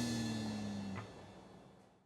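Closing background music: a final chord ringing out and fading away, cut short about a second in.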